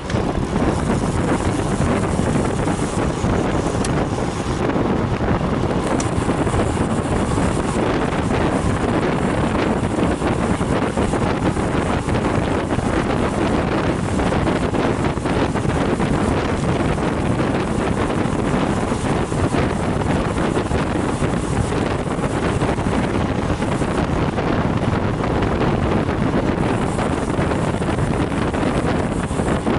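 Steady wind noise on the microphone of a camera on a moving road bike riding in a group.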